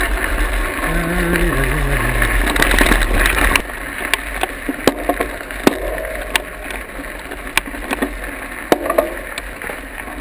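Mountain bike riding along a dirt trail, with heavy wind and rumble on the microphone and a man singing "la-ri la-ri" along the way. About three and a half seconds in, the sound cuts to quieter trail noise with scattered sharp clicks and knocks as the bikes are slowed, walked and handled on the rocky path.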